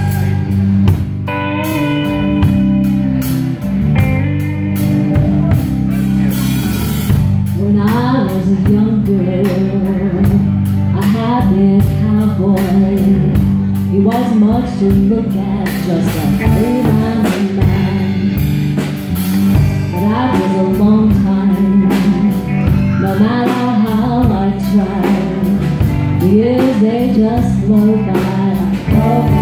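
Live blues-rock band playing: electric guitar, electric bass and drum kit, with a woman's voice singing lead.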